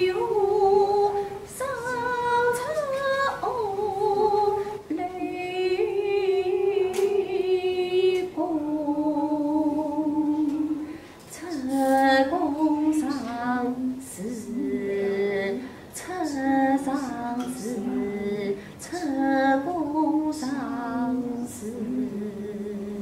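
A woman singing Kunqu opera, holding long drawn-out notes with a slow waver and sliding from one pitch to the next.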